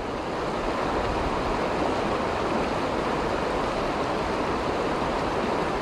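Steady rushing of fast-flowing river water over a shallow riffle.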